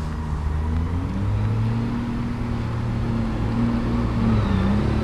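A motor engine running at a low pitch, stepping up in pitch about a second in and then holding steady while growing slightly louder.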